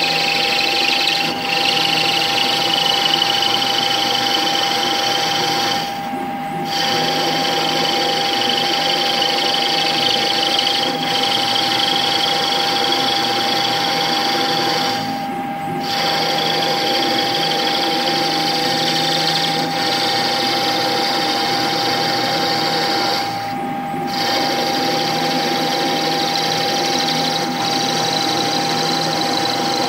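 CNC lathe spindle running and the tool turning an aluminium cone, a steady machining noise with a constant whine and a higher whine that slowly rises in pitch. The noise drops briefly about every eight to nine seconds.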